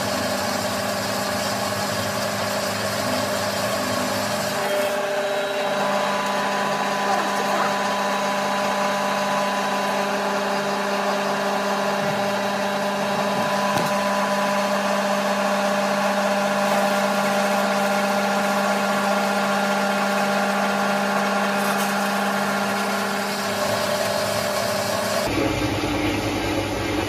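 7-inch metal-cutting bandsaw running steadily, its blade working through a metal workpiece, with a steady hum made of several tones over a grinding hiss. Near the end a lower rumble comes in.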